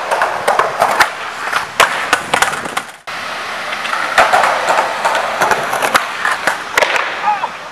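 Skateboard wheels rolling loudly over rough concrete, with many sharp clacks and knocks of the board against the ground. The rolling breaks off abruptly about three seconds in and starts up again.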